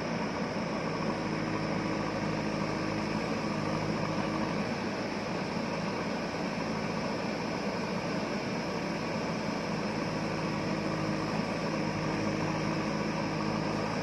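JCB 3DX backhoe loader's diesel engine running steadily while the rear backhoe digs into the hillside. A slightly higher hum joins twice, for a few seconds each time.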